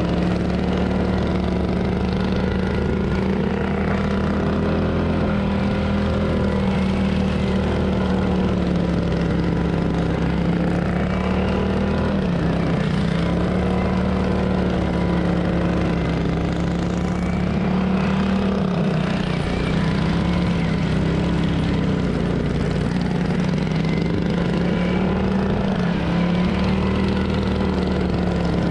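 Single-cylinder racing lawn tractor engine running hard at high revs. Its pitch dips briefly a few times and climbs back.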